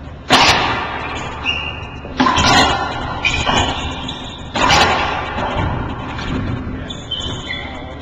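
Racquetball rally: sharp cracks of the ball off the racquets and the walls of a glass-walled court, each ringing on briefly. The loudest cracks come in the first five seconds, quieter ones after. Short high squeaks sound between the shots, from the players' shoes on the court floor.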